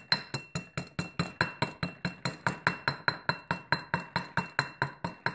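Hammer rapidly striking a socket that drives a new front wheel bearing into the hub of a 2005 Yamaha Raptor 350 ATV: a steady run of about five sharp metallic strikes a second, each ringing briefly.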